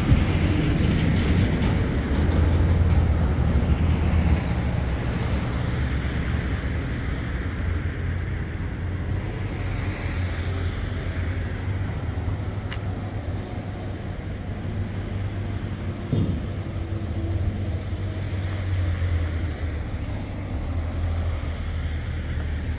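Street traffic and vehicle engines running, with a steady low hum, and a single short knock about two-thirds of the way through.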